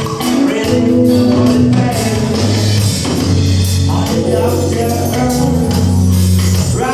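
Band music with a steady bass line, guitar and percussion.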